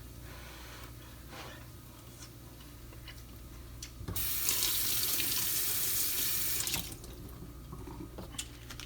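Kitchen tap turned on and running for about three seconds, starting about four seconds in and then shut off, with a few faint clicks and knocks before and after.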